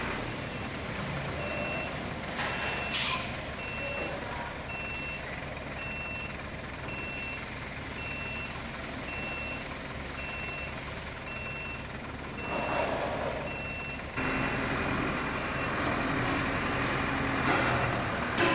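Dump truck reversing: its backup beeper gives a short high beep about once a second over the running engine, stopping near the end. There is a brief hiss about three seconds in, and the engine gets louder about three-quarters of the way through.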